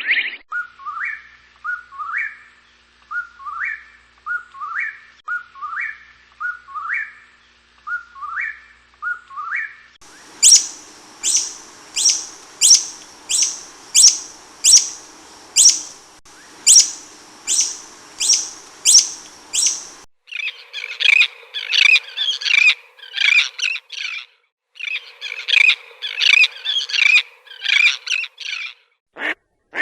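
Three different wild birds call one after another. First comes a series of short rising whistled calls, a little over one a second. Then loud, high, sharp notes repeat about one and a half times a second, and near the end there are two long bursts of chattering.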